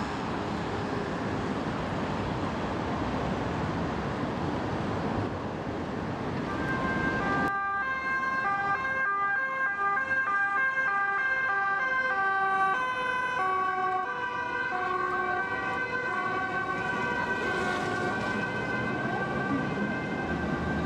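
Traffic noise, then, from about seven and a half seconds in, a police car's two-tone siren stepping between high and low notes, with a second steady tone held under it.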